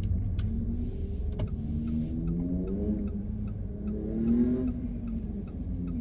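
A car's turn-signal indicator clicking at an even pace, about two and a half clicks a second, over the low rumble of the car heard from inside the cabin.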